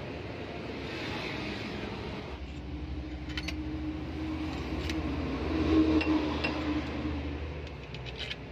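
Light metallic clinks as the camshaft and its bearing caps are fitted onto a diesel cylinder head, over a steady low mechanical hum.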